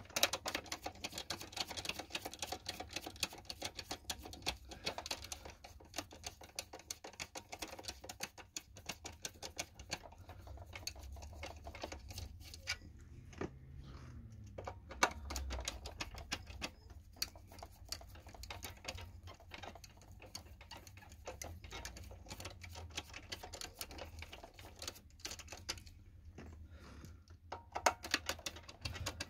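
Fast, light clicking and ticking of a T10 screwdriver backing small screws out of the plastic housing of a Gtech AirRam Mk1 cordless vacuum, with plastic parts being handled. The clicking pauses briefly a few times.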